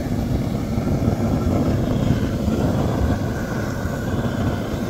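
Handheld gas torch burning steadily, a continuous low rushing flame noise, as it is passed over an earthbag wall to burn off the outer sack fabric.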